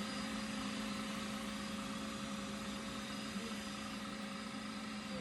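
Electric motor running with a steady whine and a hiss. It falls in pitch, winding down, near the end.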